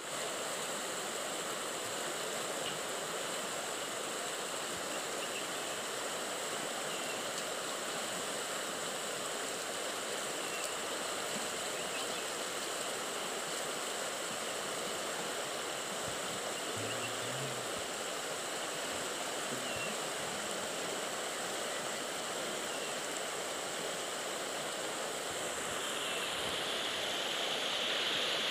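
Shallow, rocky river rushing steadily over stones, a little louder near the end.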